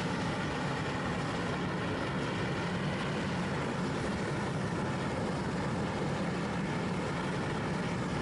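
Backyard metal-melting furnace running with its burner firing: a steady rushing drone of flame and blower air, with a low hum underneath.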